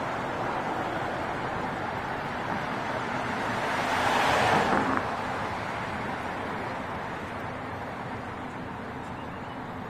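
Road traffic noise, steady, with one louder swell about four seconds in that drops off abruptly about a second later, like a vehicle going by.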